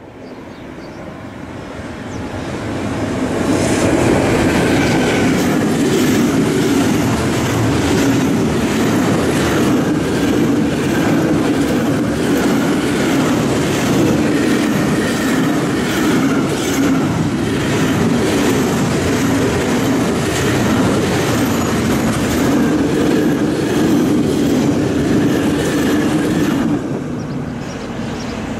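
Intermodal freight train of loaded container flat wagons passing close at speed, wheels clicking steadily over the rail joints. The sound swells over the first few seconds and then holds level. Near the end it drops abruptly to the quieter sound of another train approaching.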